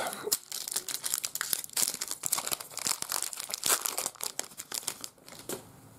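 Foil trading-card pack wrapper crinkling and tearing as it is opened, a dense run of crackles that dies away about five seconds in.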